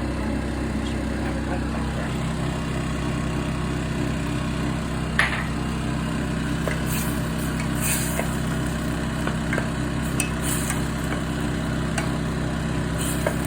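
A steady low hum runs throughout, with a few sharp clicks and scrapes of a cooking utensil against a pan, the loudest about five seconds in.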